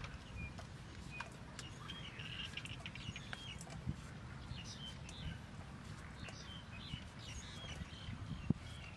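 Small birds chirping on and off in the background while a small knife cuts and shaves a green mango, with scattered light clicks and one sharp click near the end.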